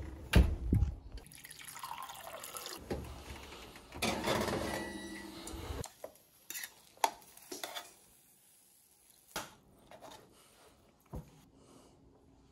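An oven door shut with a bang, followed by a few seconds of rushing noise. Then come scattered clinks of a knife and fork against a metal baking tray and a plate.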